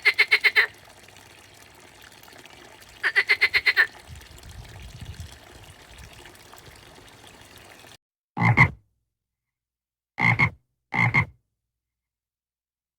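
Frogs croaking: two short rattling trills of rapid pulses about three seconds apart over faint steady background noise. After an abrupt drop to silence about eight seconds in come three single, deeper croaks.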